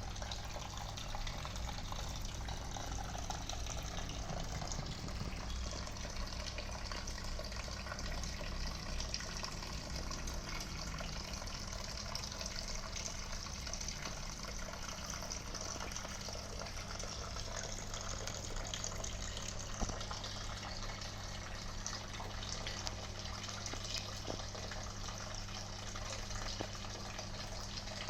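Decorative garden water fountain running: water splashing and gushing steadily, with a steady low hum underneath.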